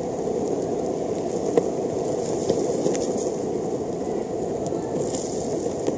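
Longboard wheels rolling over tarmac: a steady rumble with a few small clicks and knocks from the board.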